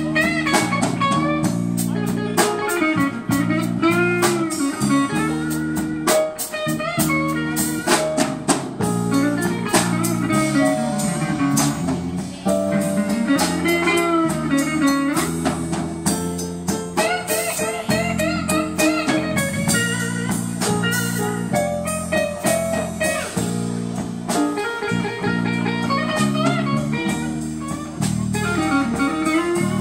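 Live blues band music with no singing: an electric guitar plays a lead line of bent notes over a drum kit.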